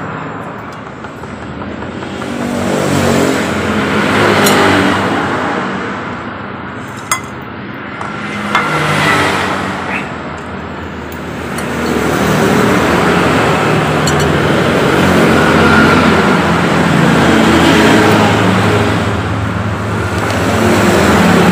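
Road traffic passing close by. Several vehicles swell and fade, then comes a longer spell of continuous engine and traffic noise in the second half, with a couple of sharp clicks near the middle.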